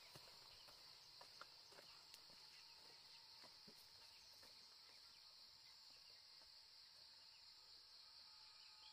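Faint, steady high-pitched chorus of insects with a few soft ticks.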